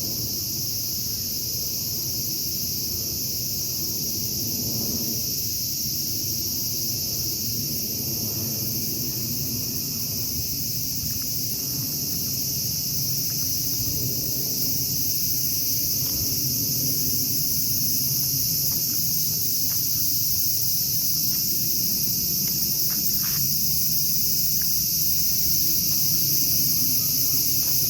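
Steady, high-pitched chorus of insects with a faint low rumble underneath.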